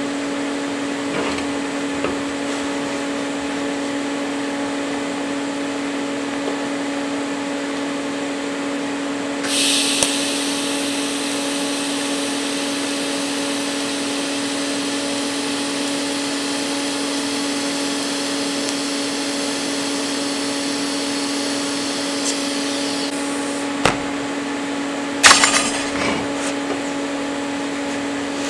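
TIG welder humming steadily, its water-cooled torch setup running. About nine and a half seconds in the arc strikes and hisses evenly for about thirteen seconds, then cuts off. This is followed by a few sharp clicks, one louder knock among them.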